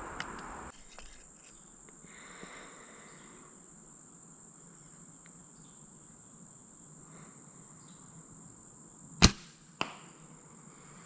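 A compound bow is shot about nine seconds in, giving a sharp loud snap at release. About half a second later there is a smaller, duller hit as the arrow strikes the target.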